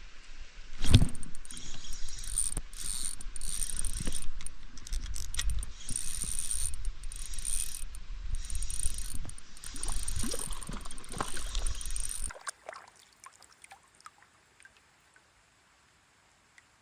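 Close handling noise of camp gear: quick clicks, rattles and knocks with rustling, a sharp knock about a second in, stopping abruptly after about twelve seconds, leaving only a few faint ticks.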